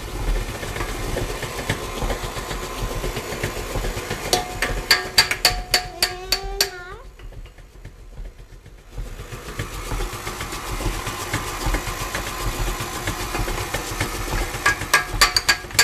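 Sharp clicks and taps of a plastic measuring cup and spoon knocking against mixing bowls, in runs about four to six seconds in and again near the end, over a steady low hum.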